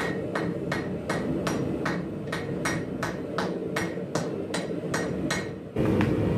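Hand hammer striking a red-hot Damascus billet of 15N20 and 1084 steel on an anvil, forge-welding the borax-fluxed layers together. There are even blows at about three a second, and they stop near the end.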